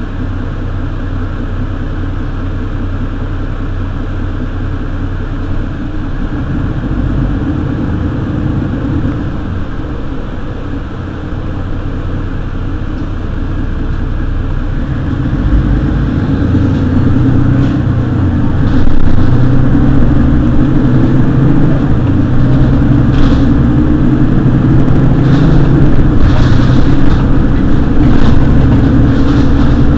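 Mercedes-Benz Citaro city bus engine running steadily, then growing louder from about halfway through as the bus accelerates, and staying loud to the end.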